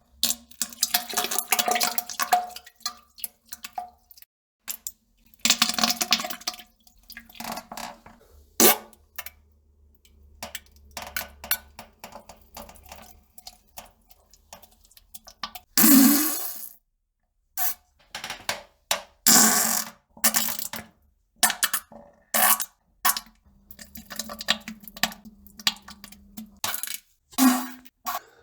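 A person on the toilet defecating and farting: irregular bursts of flatulence, several with a low buzzing pitch, among wet splashes and plops into the toilet water. The loudest burst comes about sixteen seconds in.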